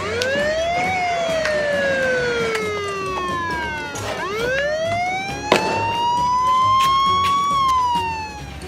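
Police siren wailing in two slow cycles: the pitch rises for about a second and falls for nearly three, then rises for about three seconds and falls again near the end.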